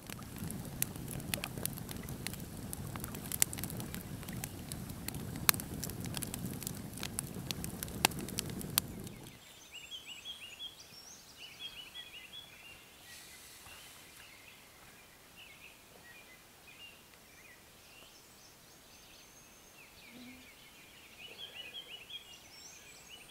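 Wood campfire crackling with frequent sharp pops over a steady low hiss of burning, cutting off abruptly about nine seconds in. Then quiet open air with small birds chirping in quick repeated phrases.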